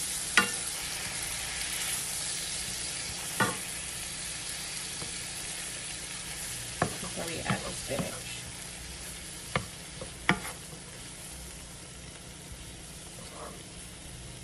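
Red onions and garlic sizzling in butter and lemon juice in a nonstick frying pan as they cook down, the sizzle easing off slightly. A wooden spatula stirs and knocks sharply against the pan several times.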